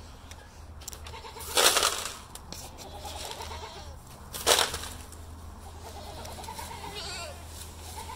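Poultry calling from a pen: two loud, harsh calls about one and a half and four and a half seconds in, with fainter pitched calls in between.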